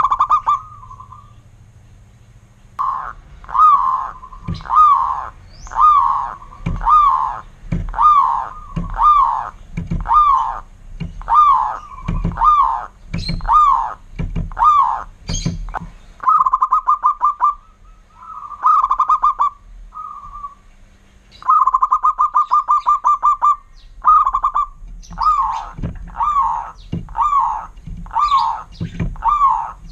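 Zebra dove (perkutut) singing: a loud coo repeated about once a second. Twice the coos give way to a quick rolling trill of rapid notes.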